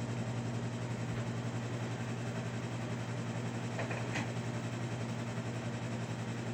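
Steady low hum of a noisy air conditioner running, likened to an aeroplane.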